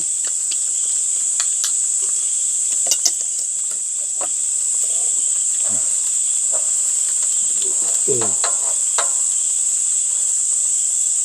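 Steady high-pitched chorus of crickets, with scattered small clicks and a few brief murmurs of voice.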